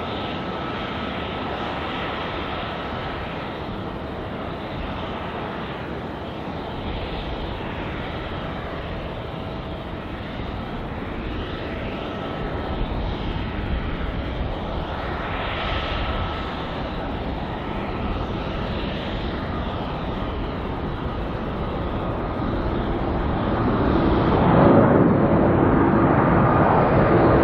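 Airbus A350-900 jetliner's two Rolls-Royce Trent XWB engines at takeoff thrust as it rolls down the runway, lifts off and climbs toward overhead: a steady jet noise with a thin high whine. It grows louder about 24 seconds in as the jet comes close.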